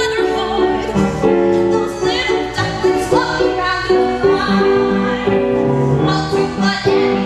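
Musical-theatre singing with piano accompaniment, the voices holding long sustained notes.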